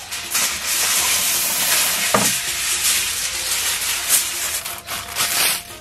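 Sheet of aluminium foil crinkling and rustling as it is unrolled, folded and creased by hand into a tray, a dense run of sharp crackles.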